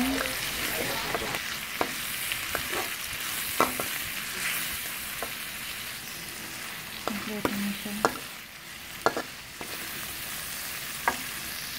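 Paste sizzling in hot oil in a wok as it fries toward browning. It is stirred with a metal spatula that scrapes and clicks against the pan every second or so.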